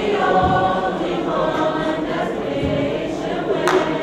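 A choir singing, voices holding long notes together.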